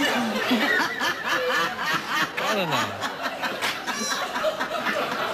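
Several people laughing and giggling in bursts, with one voice sliding down in pitch about two and a half seconds in.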